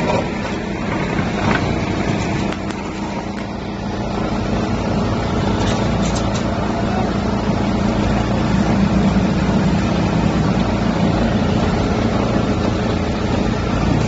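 Wheel loader's diesel engine running close by with a steady drone, growing louder about four seconds in as the loader lifts a grapple load of wood waste. The drum wood chipper's running is mixed in with it.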